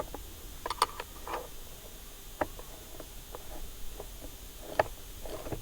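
Scattered light clicks and knocks of brushcutter parts being handled and fitted together by hand, a dozen or so separate taps with the sharpest near the start, in the middle and near the end.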